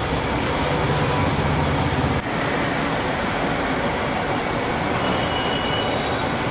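Marinated chicken pieces deep-frying in hot oil in a large iron kadai, a steady loud sizzle as the pieces are stirred and lifted with a slotted ladle. A low hum underneath stops abruptly about two seconds in.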